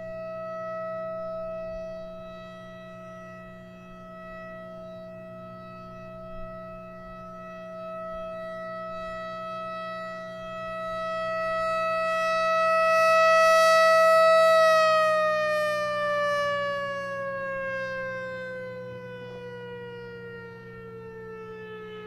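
Federal Signal Thunderbolt 1000 tower-mounted warning siren sounding its monthly test: one steady wailing tone that swells and fades as the rotating horn sweeps around. About two-thirds of the way in the pitch starts falling steadily as the siren winds down, over a steady low hum.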